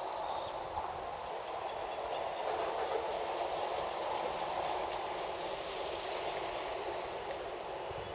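Steady outdoor rushing noise that swells slightly a few seconds in, with a few faint, short high chirps near the start and near the end.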